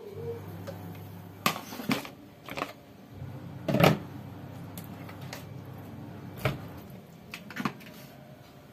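Plastic containers and bowls being knocked and set down on a stainless-steel sink counter: a handful of separate clatters, the loudest about four seconds in, over a low steady hum.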